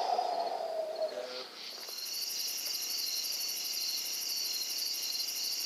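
Night chorus of crickets and other insects: a steady, high, finely pulsing trill. It is opened by a brief falling tone in the first second and a half.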